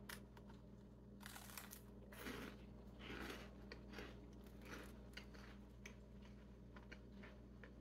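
Faint crunching and chewing as a dense, extruded caramel maple corn puff is bitten and chewed, a series of small crisp crunches that are strongest in the first few seconds.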